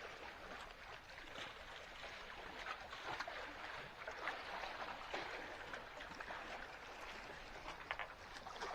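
Faint sea water lapping and trickling, with many small irregular splashes.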